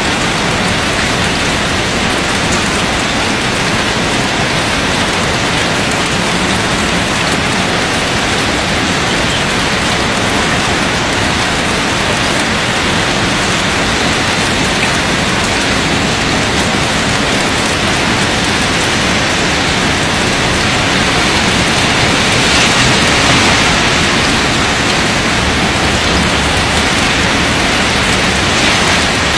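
Heavy rain pouring steadily, growing a little louder for a couple of seconds about three quarters of the way through.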